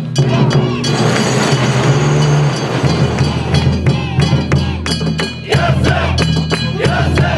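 Festival float music: steady low tones with quick drum and metal-bell strikes clinking over them. A rush of noise rises between about one and three seconds in.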